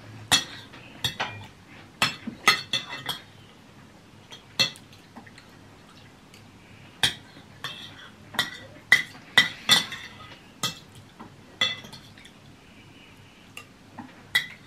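Metal spoon and fork clinking and scraping against a ceramic bowl while eating: irregular sharp clinks, some ringing briefly.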